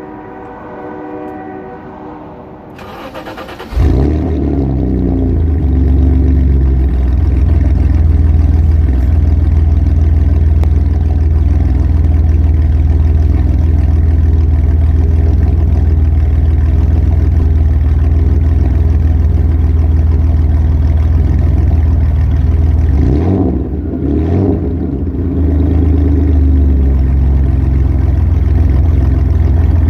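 BMW E34 engine cold-started: the starter cranks briefly about three seconds in, the engine catches and runs at a loud, steady fast idle. About twenty-three seconds in the engine note dips and rises again before settling back.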